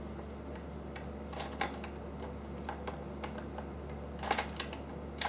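J-band resistance tubing and its wall clip giving a few faint, scattered clicks and ticks as the arm circles against the band, with a small cluster about four seconds in, over a steady low hum.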